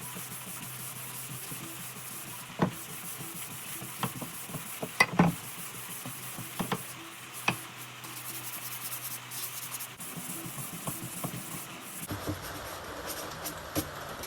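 Hand-sanding with 220-grit sandpaper: a steady rubbing hiss broken by a few light knocks, getting fuller and louder near the end.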